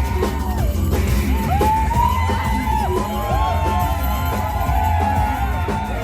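Live rock band music, loud and dense: a heavy steady low drone under wavering, sliding high tones, with some yelling.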